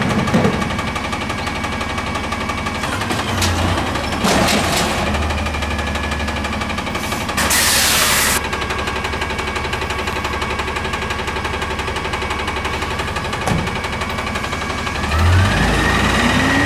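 Natural-gas Freightliner M2 garbage truck running steadily while its Amrep automated side-loader arm empties a cart, with a few sharp bangs of the cart against the hopper. About seven seconds in there is a one-second burst of air hiss, and near the end the engine picks up with a rising whine as the truck moves off.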